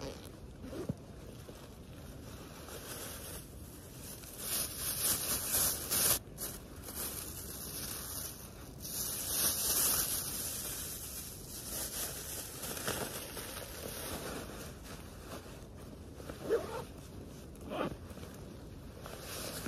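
Thin plastic bag crinkling and rustling, densest and loudest through the middle. Near the end come a few short bumps and rustles as it is handled against clothing and gear.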